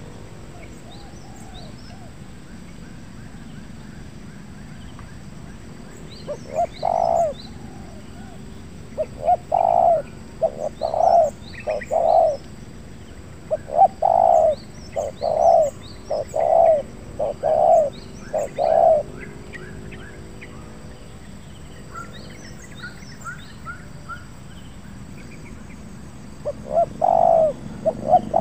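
Spotted dove cooing: a run of loud coos in repeated phrases from about six seconds in to about nineteen seconds, then another short phrase near the end. Faint high chirping of small birds runs underneath.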